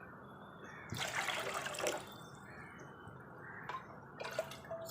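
Water poured from a cup into a cooking pot, a splashing pour lasting about a second, with a few light clicks near the end over a steady low hiss.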